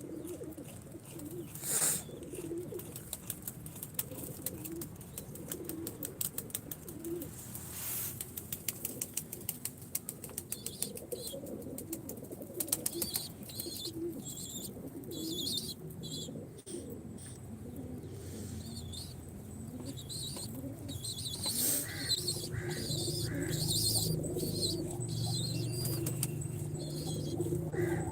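Domestic pigeons cooing, with wing flaps about 2 and 8 seconds in. Higher bird chirps come and go from about ten seconds in.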